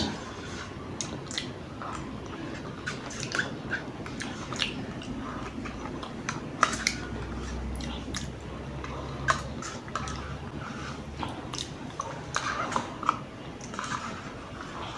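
Close-miked eating sounds: wet mouth smacks and chewing clicks from eating a soft, creamy food spooned from a small plastic cup, with light taps and scrapes of the spoon on the cup. The sharp clicks come irregularly throughout.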